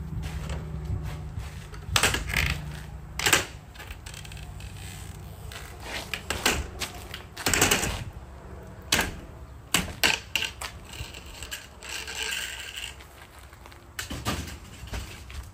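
Irregular knocks and clatter, about a dozen sharp strikes spaced unevenly, the loudest around two, three and eight seconds in, with a short rattling scrape about twelve seconds in.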